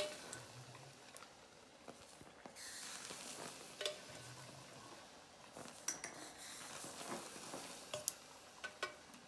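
Liquid nitrogen being scooped from a bath with a small dipper and poured into the freezer's central well: a faint hiss with scattered light clinks and taps. More nitrogen is going in because the chamber is running a little too warm for its programmed cooling ramp.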